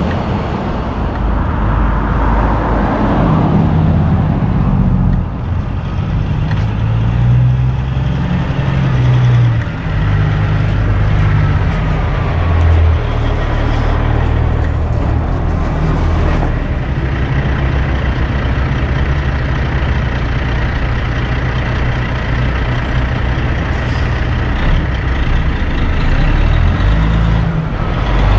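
Big-rig diesel engine running close by, its low drone stepping up and down in pitch, over traffic noise.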